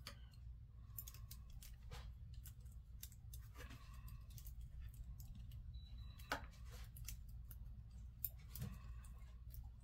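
Faint, irregular small clicks and ticks of metal tweezers handling tiny wires and parts on an HO-scale locomotive chassis, over a low steady hum.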